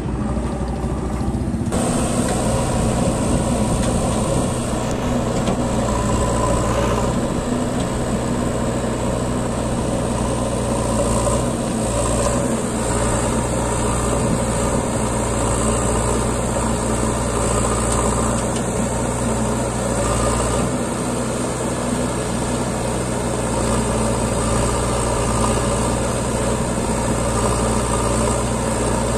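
Diesel engine of a JCB 3DX backhoe loader running steadily while it digs and loads soil into a tractor trolley.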